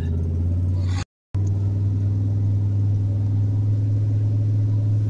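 Steady drone of a vehicle's engine and road noise heard from inside the cab while driving. The sound drops out for a moment about a second in, at an edit.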